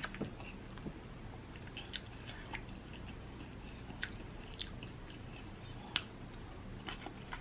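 A person chewing food, with scattered sharp mouth clicks and smacks every second or so.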